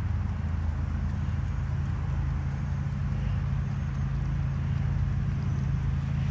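A steady low mechanical hum, like a motor running, with a faint noisy haze over it.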